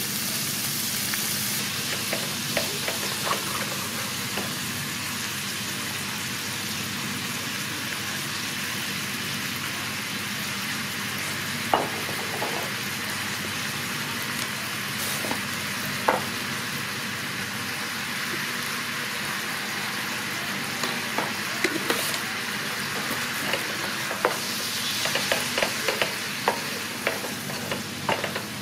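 Diced pork sizzling in hot oil in a frying pan, a steady hiss, while a wooden spatula stirs it and now and then knocks against the pan with sharp clicks, more often near the end.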